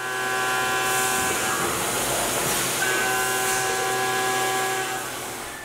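CNC mill face-milling an aluminium block with a long stick-out end mill under flood coolant: a steady pitched cutting tone with several overtones over the hiss of coolant spray. The tone drops out for about a second and a half near the middle, then returns.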